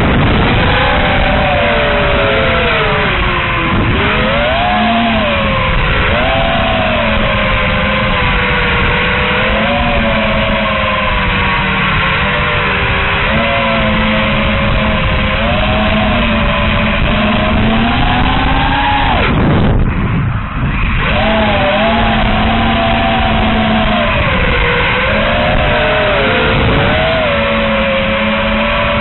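Motors and propellers of a TBS Source One FPV quadcopter whining, heard through its onboard camera with wind rush. The pitch rises and falls with the throttle. About two-thirds of the way in the throttle is cut briefly and the whine falls away, then climbs back up.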